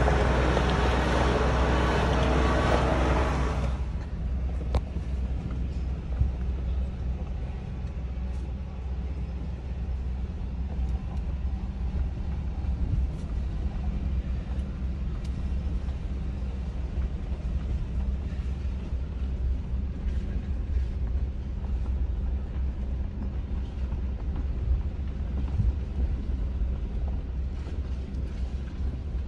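Low, steady engine rumble of vehicles driving slowly along a rough dirt trail. It is louder and fuller for the first four seconds, then drops suddenly to a steadier low rumble with scattered knocks and bumps.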